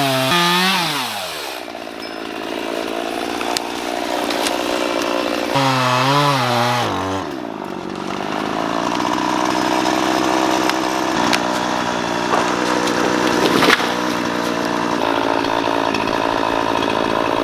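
Two-stroke chainsaw revved up and let back down twice in the first seven seconds, then running steadily for the rest of the time, with one sharp crack about fourteen seconds in.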